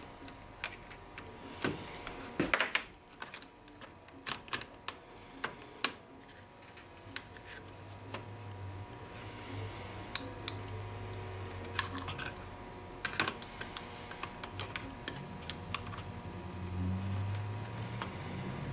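Irregular small clicks and taps of a laptop hard drive and its mounting parts being handled and fitted into an opened MacBook Pro case, over a faint steady hum.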